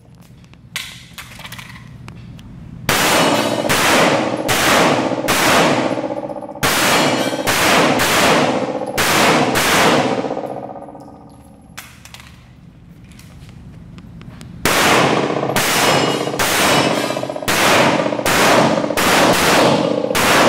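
Strings of semi-automatic pistol shots fired in quick succession, several a second, with a lull of a few seconds in the middle. Each shot rings out with a long echo off the concrete walls of the indoor range.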